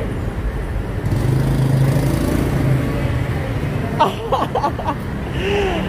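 Road traffic: cars and motorcycles driving past close by, engines running and tyres on the road, with a stronger engine hum for a couple of seconds. A brief sharp knock about four seconds in.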